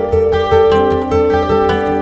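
Background music: a plucked-string tune over a steady low beat.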